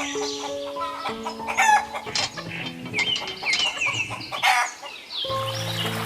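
Chickens clucking in short, repeated calls over background music with sustained notes; the music grows fuller near the end.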